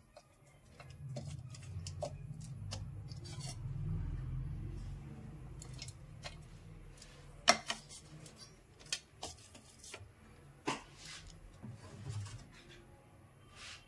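Ceramic plates and a bowl clinking and tapping against each other as chopped herbs are tipped from one dish into the other, in scattered sharp clicks with the loudest about seven and a half seconds in. A low rumble runs through the first half.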